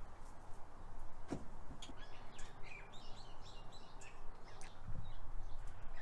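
Birds chirping over low background noise, with a few faint clicks and taps as floured chicken is dipped in egg wash.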